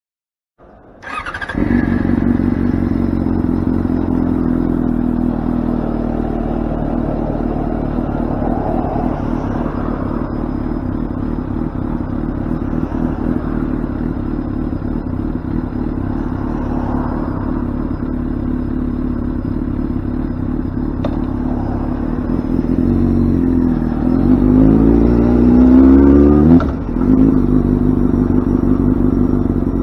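Yamaha FZ6n's inline-four motorcycle engine idling steadily through its exhaust, then revved up with a rising pitch near the end before it falls back to idle.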